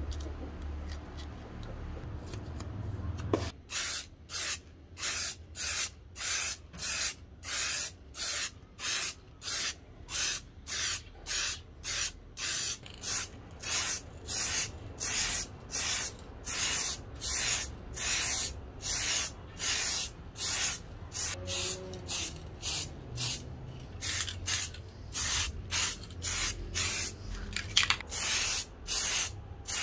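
Aerosol spray can hissing in short, rapid bursts, about one and a half a second, starting about three seconds in after a low hum.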